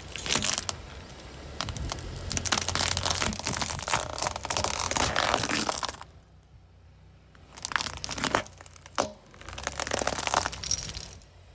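Plastic disposable lighters and a wicker basket crushed under a car tyre: crunching, crackling and cracking for about six seconds, then after a short pause a few sharp cracks and another spell of crunching.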